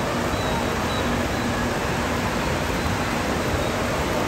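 Steady rushing of water running down the water slides and churning in the splash pool, blended with the general noise of an indoor water park hall and faint distant children's voices.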